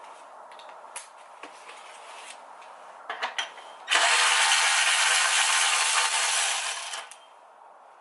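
A few light metallic clicks of tools being handled, then a cordless power tool, likely a ratchet, running steadily for about three seconds before fading out, as bolts on the engine's front timing cover are spun out.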